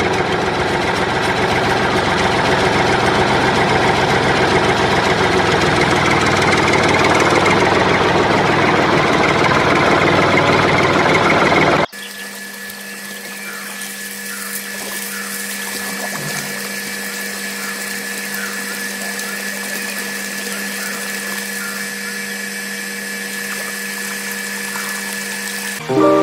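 Small electric motor of a homemade toy tractor running with a loud, dense, rattly noise for about the first twelve seconds. After a sudden cut, a quieter steady hum with a thin high whine follows as the motor drives a belt-driven miniature water pump.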